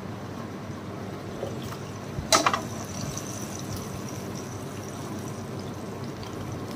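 A metal karahi set down on a steel grill grate: a short clatter of metallic clanks with a brief high ring, a little over two seconds in, over a steady hiss.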